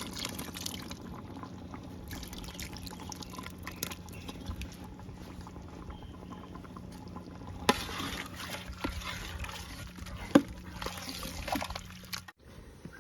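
Ground pearl millet paste being poured into a pot of boiling duck gravy: liquid pouring and splashing, with a couple of sharp knocks in the second half. The sound cuts off abruptly near the end.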